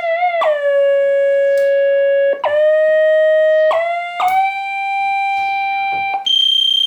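1979 Yamaha CS-20M analog monophonic synthesizer playing sustained single notes, each opening with a short click and a brief slide into pitch. Four notes step upward, then a higher, thinner tone sounds near the end.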